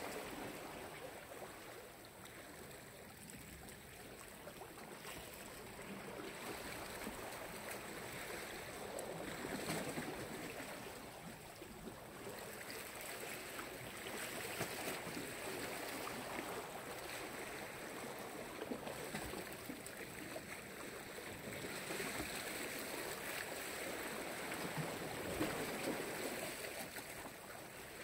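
Black Sea waves washing onto the shore, the wash swelling and falling back every few seconds.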